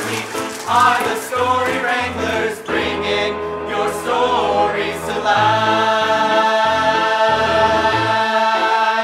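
Outro theme music with voices singing over a bass line, settling about halfway through into a long held chord.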